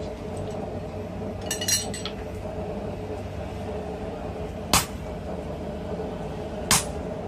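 Metal clinking as tongs handle the tool on a steel block, then two sharp hammer blows about two seconds apart on a short slot punch held in tongs, driving it into hot steel. A steady hum runs underneath.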